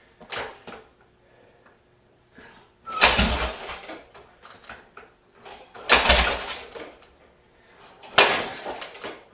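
Kick-starter of a 1968 Harley-Davidson Ironhead V-twin chopper stomped three times, about two and a half seconds apart. Each kick is a loud sudden clunk and rush that dies away within about a second. The engine turns over but does not catch.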